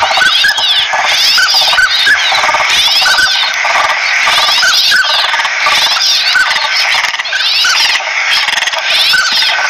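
Flock of northern pintails calling, many overlapping whistles and calls in a dense, continuous chorus with a pattern recurring about once a second.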